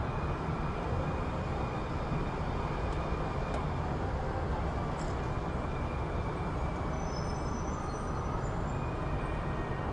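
City street ambience: a steady low rumble of passing traffic, with a few faint high-pitched tones about seven seconds in.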